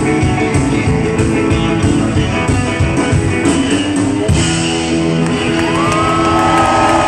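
Live rockabilly band playing loudly: hollow-body electric guitar over upright bass with a steady beat. A long held high note comes in near the end.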